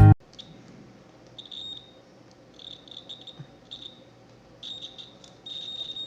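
Digital multimeter's continuity tester beeping in short, irregular high-pitched beeps, each beep signalling that the crimped cable's conductor is unbroken.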